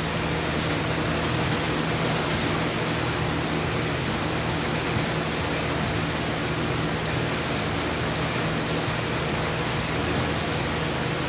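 Heavy rain in a steady downpour, an even hiss of rain on surfaces, with a steady low hum underneath.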